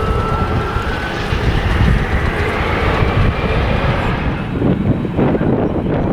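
Jet airliner engines running, with a faint whine slowly rising in pitch over the first few seconds. Wind buffets the microphone throughout and takes over near the end.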